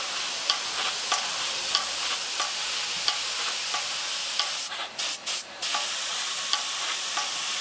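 Air spray gun atomizing liquid into a fine mist with a steady hiss, briefly stuttering off and on about five seconds in as the trigger is let go and pulled again. A regular click about every two-thirds of a second comes from the air-driven pump feeding the gun as it cycles.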